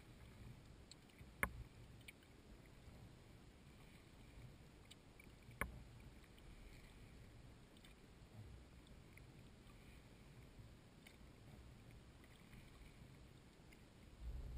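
Faint water noise of a kayak moving on a river, a low wash against the hull, broken by two sharp knocks, one about a second and a half in and one just before six seconds.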